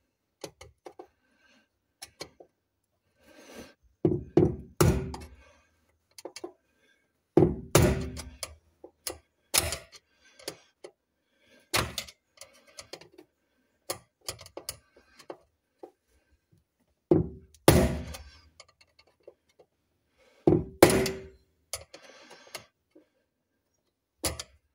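Hammer blows on a screwdriver used as a drift against the fuel pump's locking ring on a Jaguar XK8 fuel tank, knocking the ring round to loosen it. Sharp knocks in irregular bunches every few seconds.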